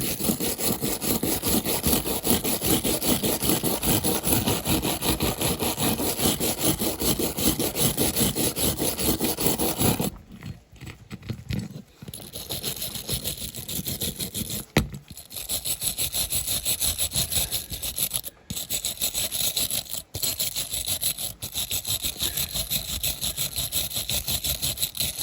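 Steel wire hand brush scrubbing a die-cast metal toy car body in rapid back-and-forth strokes, cleaning off paint left after caustic-soda stripping. It scrubs steadily for about ten seconds, pauses briefly, then carries on in spells with a few short breaks.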